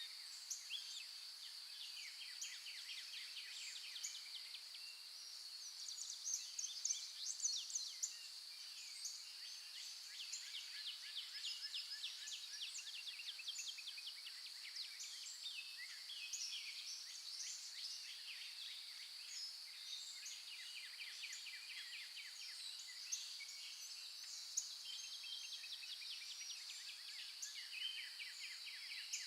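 Forest birds at dawn: many small birds chirping and trilling, some in fast rattling runs, over a steady high-pitched drone.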